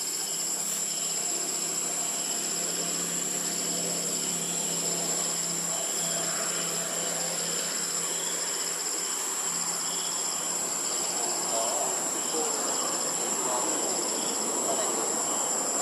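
Tropical forest insects calling: a steady high-pitched whine with evenly repeating pulsing chirps beneath it.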